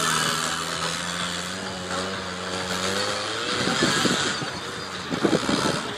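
Off-road trial jeep's engine working hard as it climbs a steep rocky slope, its pitch wavering as the throttle is worked. In the second half there are rougher, rattling stretches.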